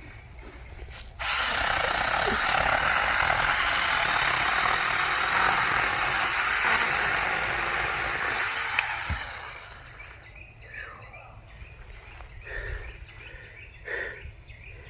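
A New Huing 4-inch battery-powered mini chainsaw cutting through a tree trunk. It starts abruptly about a second in, runs as a steady high buzz for about eight seconds, then dies away. Quieter rustling and handling sounds follow.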